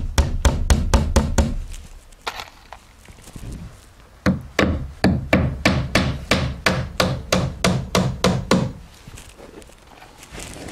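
Claw hammer driving 2-inch galvanized finishing nails through an engineered-wood siding panel into the wall studs. A quick run of blows, a pause of about three seconds, then a longer steady run of about three blows a second that stops near the end.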